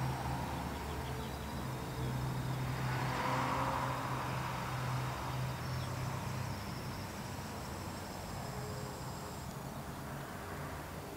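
Outdoor ambience with a steady low engine hum that weakens after about six seconds, and the noise of a vehicle passing that swells and fades about three seconds in.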